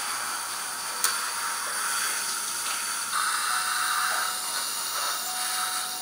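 Surgical suction hissing steadily at the operating site, its airflow growing louder about three seconds in, with one sharp metallic click about a second in.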